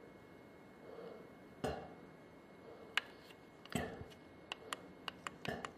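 Plastic push-buttons on a programmable floor-heating thermostat clicking as they are pressed to step the clock setting: a few separate clicks, then a quicker run of about six near the end.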